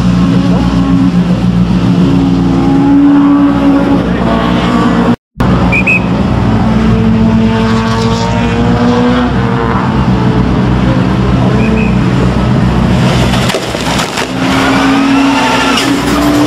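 Rallycross Supercar engines running loud at the start line, the revs rising and falling in repeated blips. The sound drops out briefly about five seconds in.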